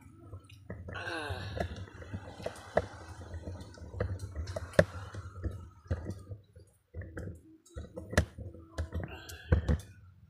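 Metal spoons clicking and scraping against a plate and a soup bowl during a meal of rice and fish soup, as a scatter of short sharp clicks.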